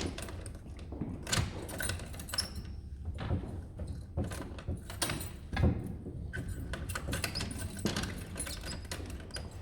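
Irregular clicks, rattles and small knocks of keys and wooden fittings as the mechanical cylinder bureau is handled, with one sharper knock about five and a half seconds in.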